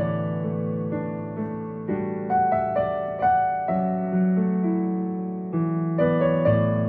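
Background music: slow piano chords, each struck and left to ring, with a new chord every second or so.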